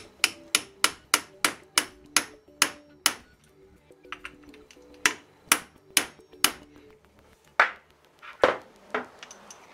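Hammer tapping a socket to drive a battery terminal clamp down onto the battery post: sharp metal strikes. About ten come in quick succession over the first three seconds, four more a couple of seconds later, and then two single strikes near the end. Faint background music plays underneath.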